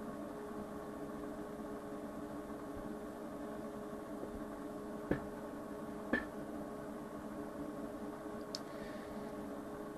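Steady low hum and hiss of running electrical equipment in a small room, with two short clicks about a second apart midway.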